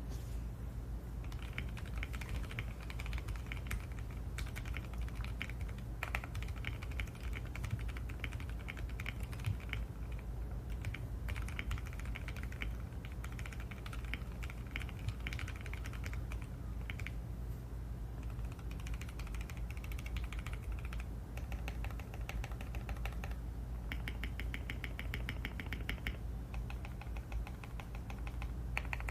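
Custom Tofu65 mechanical keyboard with hand-lubed Gateron Black Ink V2 linear switches on a PC plate, in an aluminium case with PBT keycaps, being typed on in fast runs of keystrokes with short pauses between them.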